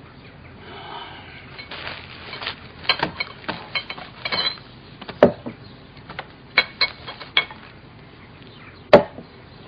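Irregular sharp clinks and knocks, a dozen or so short hits: a cluster in the first half, then scattered single hits, the loudest near the end.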